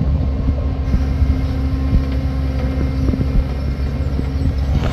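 Engines of a road roller and a small pickup truck running with a steady low drone, with scattered clicks and knocks as the pickup's tyres roll over the rough dirt and gravel road. A sharper knock comes right at the end.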